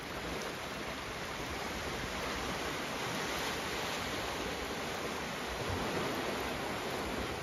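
Sea swell washing and foaming against a rock ledge, a steady rushing of water.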